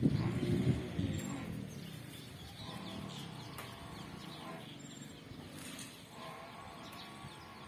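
Faint outdoor ambience with repeated bird calls, three short bouts of pitched calling. A louder low rustling noise in the first second fades out.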